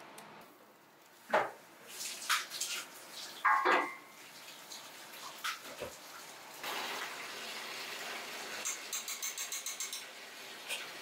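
Soy milk being poured from a stainless steel bowl into a stainless steel stockpot, with metal knocks and clatters of the bowl against the pot rim, then a steady rush of pouring liquid. A fast run of ticks, about seven a second, comes near the end.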